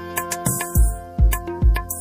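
Indian banjo (bulbul tarang) playing a plucked, ringing melody in a ringtone tune, over a deep drum beat that hits three times.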